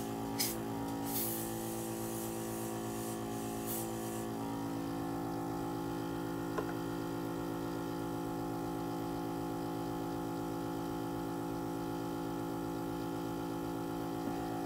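Airbrush compressor running with a steady hum, with three short hisses of air from the airbrush in the first four seconds.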